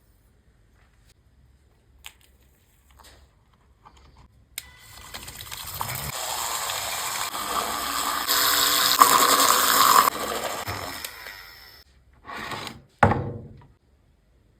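Espresso machine running: a click, then a hiss that builds for about seven seconds and cuts off, followed by two short bursts.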